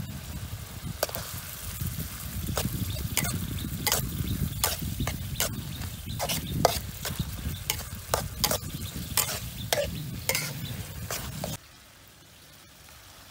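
A metal spatula stirring minced pork in a steel wok, scraping and clinking against the pan in irregular strokes over a low frying sizzle. The stirring stops abruptly near the end.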